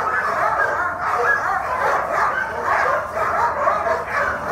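Many sled dogs barking and yipping at once, a constant overlapping din of excited voices with no let-up.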